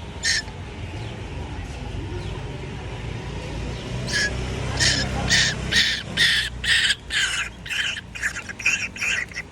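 Short, harsh bird calls: one just after the start, then from about four seconds in a run that comes faster and faster, two to three calls a second, the begging calls of birds being fed.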